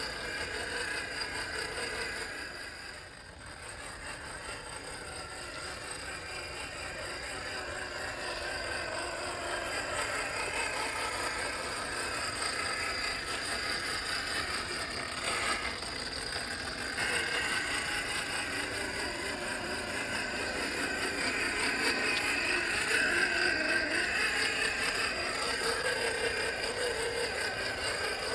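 A 1/10-scale RC rock crawler's 550 electric motor and geared drivetrain whirring and rattling as it crawls over rocky, wet ground, getting louder over the second half.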